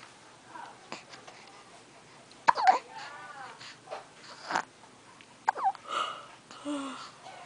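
A baby making a handful of short hiccup-like squeaks and coos with pauses between them, the loudest about two and a half seconds in.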